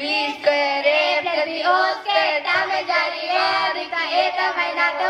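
A child singing in a high voice, with long held notes that bend up and down.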